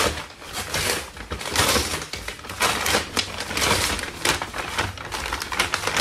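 Brown kraft-paper Amazon mailer bag being torn open and crumpled by hand: loud paper crackling and tearing, coming again and again in uneven spells.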